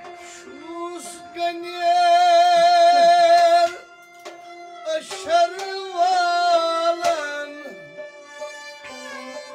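Live Kashmiri Sufi folk music: a voice sings two long, wavering held notes, loudest about two seconds and five seconds in, over bowed and plucked string accompaniment with occasional sharp plucks.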